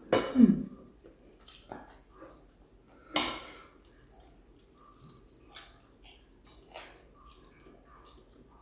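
Two people eating barbecue ribs at a table: faint wet chewing and lip-smacking with small clicks from hands and cutlery. There is a short loud voiced sound right at the start and a sharp smack about three seconds in.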